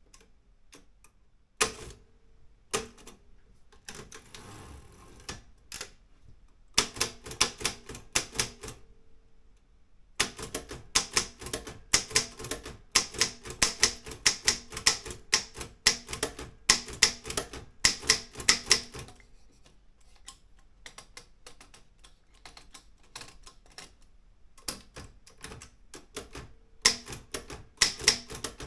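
Olympia M8 manual typewriter being typed on: sharp key strikes in fast runs, broken by short pauses. Only a few scattered strokes come at first, then steady runs of typing.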